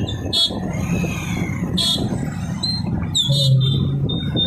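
Many small motorcycles riding past in a slow procession, their engines running together in a steady hum. Several short, shrill high notes sound over it, and a steady high tone starts near the end.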